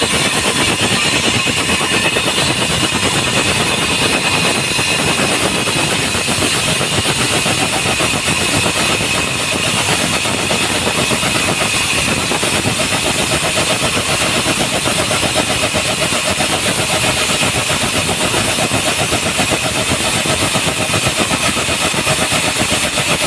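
Diamond core drill running steadily, cutting a hole in a concrete slab.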